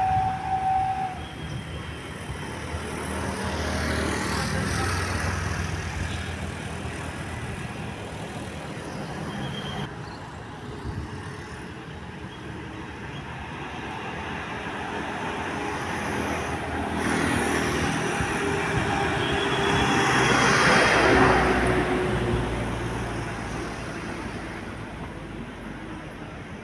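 Road traffic passing close by: one vehicle goes past about four seconds in and a louder one around twenty seconds in, each rising and then fading. A horn note dies away in the first second.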